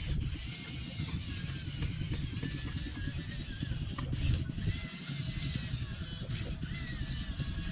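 Radio-controlled model truck running: a rough low rumble with a faint whine that rises and falls.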